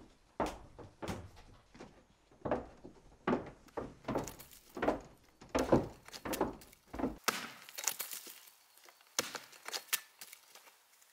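Steady footsteps on wooden stairs, a little over one step a second. About seven seconds in, they give way to an axe chopping into a tree stump: several sharp, splintering strikes into wood.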